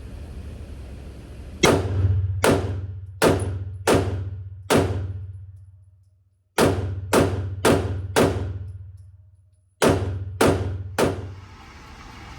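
Glock 43X 9mm pistol firing twelve shots in three quick strings of five, four and three, each shot about two-thirds of a second apart. Each shot rings out with a reverberant tail, as in an indoor range.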